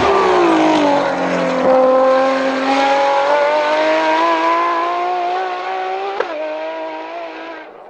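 Ferrari FXX-K track hypercar's engine passing at speed: its note drops as it slows, then climbs steadily as it accelerates away. A single sharp crack comes about six seconds in, and the engine fades near the end.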